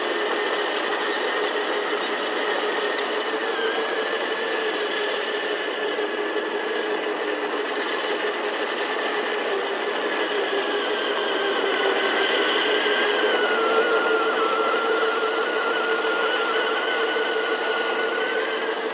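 Heng Long M1A2 Abrams RC tank driving: a steady mechanical whine from the toy tank that wavers slightly in pitch and grows a little louder about two-thirds of the way through.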